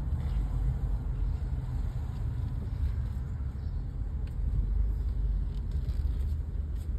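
Steady low rumble of a car heard from inside its cabin, engine and road noise while it moves slowly.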